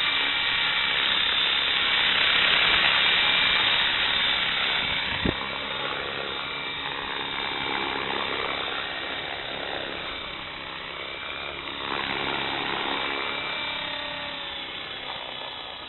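Electric RC helicopter hovering low: the motor whine and rotor hum, with pitch rising and falling as the rotor speed shifts to hold position.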